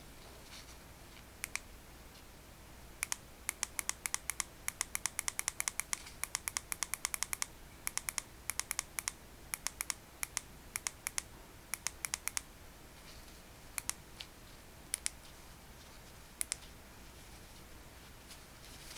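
A series of small, sharp clicks, coming in quick runs of about five a second from about three seconds in, then thinning out to a few scattered clicks near the end.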